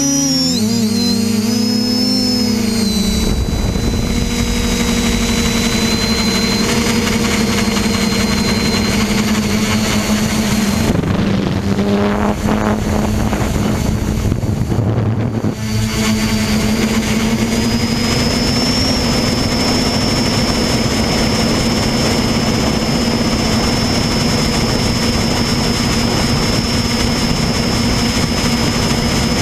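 Multirotor drone's electric motors and propellers heard from its onboard camera: a steady buzzing hum with a thin high whine, over wind rush. The pitch wavers during the first few seconds as it climbs away, and the sound thins briefly about halfway through.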